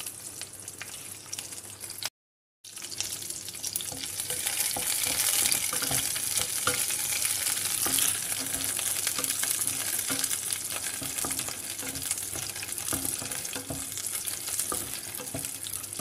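Green chillies sizzling as they fry in a little hot oil in a nonstick kadai, stirred and scraped with a wooden spatula. The sizzle cuts out completely for about half a second about two seconds in, then comes back louder.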